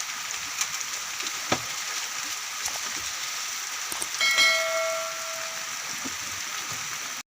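Steady rain hiss with scattered sharp drip ticks. About four seconds in, a pitched call or tone with overtones is held for about a second and a half. The sound cuts off suddenly near the end.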